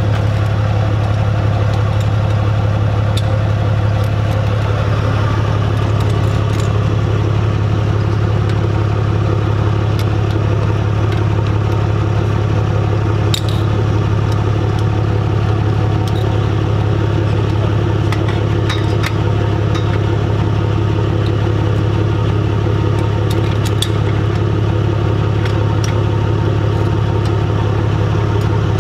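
Tow truck engine idling with a steady low hum. Over it come a few light metallic clinks and clanks as chains and straps are fitted to the truck's wheel-lift boom.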